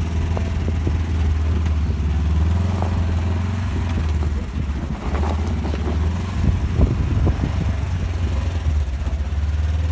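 Polaris General 4 side-by-side's engine running steadily as it drives, with scattered knocks and rattles.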